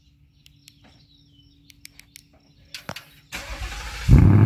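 2020 Ford Mustang GT's 5.0-litre V8 being started, warm after sitting 20 to 30 minutes. The starter cranks briefly about three seconds in, then the engine catches with a sudden loud burst through its quad exhaust just before the end.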